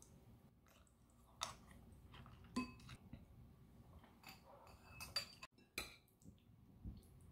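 A spoon and ceramic bowls clinking and knocking on a table: a handful of separate clinks spread over several seconds, one ringing briefly, as dishes are moved and food is scooped from a plate.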